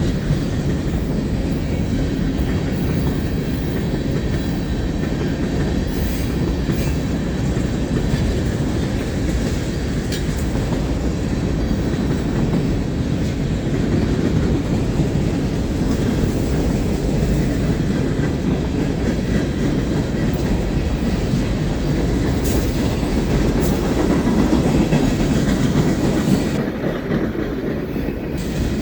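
Cars of a long CSX mixed freight train rolling past, a steady rumble of steel wheels on the rails.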